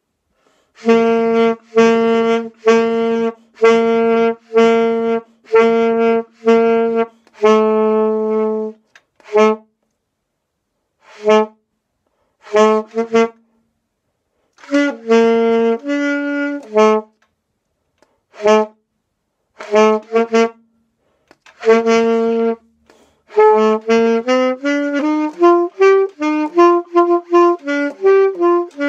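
Saxophone played solo by a sixth-grade band student: a band part of detached notes, mostly the same note repeated, with pauses between phrases. Near the end the playing turns to a quicker line of notes stepping up and down.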